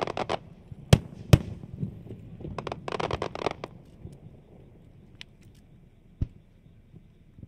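Aerial fireworks going off: a burst of crackling, two sharp bangs about a second in, and another dense crackle around three seconds in. A single bang comes near six seconds, and the sound then dies down.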